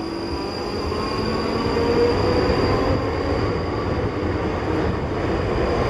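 South Western Railway Class 458 electric multiple unit pulling out past the platform: wheels running on the rails, with a faint rising whine as it gathers speed, growing louder in the first two seconds and then holding steady.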